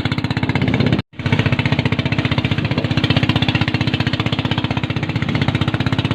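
Motorboat engine running steadily at speed, heard as a fast, even pulsing rumble. It cuts out abruptly for a moment about a second in.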